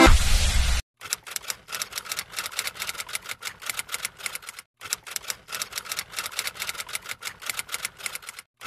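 Electronic dance music cuts off a little under a second in. It is followed by a rapid run of typewriter-style key clicks, a sound effect for text typing out on screen, with two short breaks.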